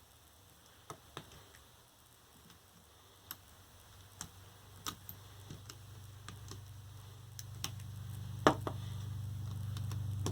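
Scattered sharp clicks and snaps of hand tools working apart an 18650 lithium-ion battery pack, the loudest about eight and a half seconds in. A low steady hum builds through the second half.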